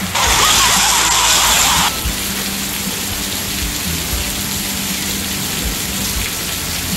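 Heavy rain pouring down, a loud steady hiss for about the first two seconds. It then cuts abruptly to quieter steady rainfall with a low, even hum underneath.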